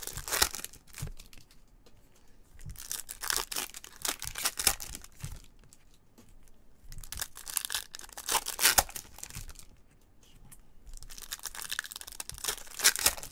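Foil wrappers of Topps Chrome trading-card packs crinkling and tearing open, in four bouts of crackling a few seconds apart.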